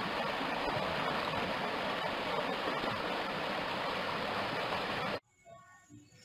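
Shallow rocky stream rushing and splashing over boulders, a steady water noise that cuts off suddenly about five seconds in.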